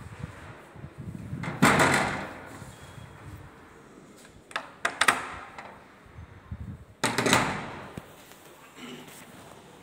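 Sliding panel of a wooden grilled safety door being slid along its track and knocking to a stop, three times: about a second and a half in, around five seconds in with a couple of sharp knocks, and again at seven seconds.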